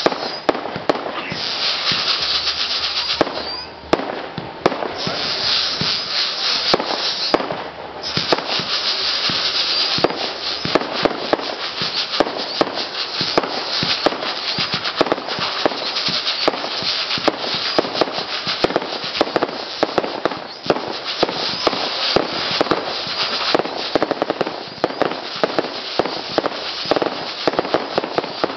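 Aerial fireworks firing a rapid, continuous barrage: a loud hiss of launches and burning stars, dense with sharp crackling pops. The hiss drops out briefly a few times between volleys.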